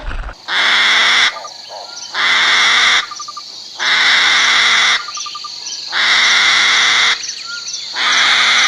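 An animal calling in loud buzzing pulses, each about a second long and coming about every two seconds. Birds chirp faintly in the gaps between them.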